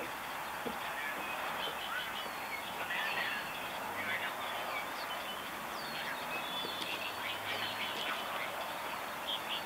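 Many small birds chirping and calling over one another in a dawn chorus: a dense run of short, high chirps over a steady outdoor hiss.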